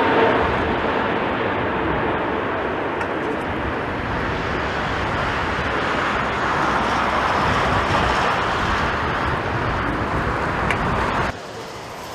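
Jet airliner's engines heard as it comes in to land, a steady rushing noise with a faint whine that fades over the first couple of seconds. The sound cuts off suddenly near the end.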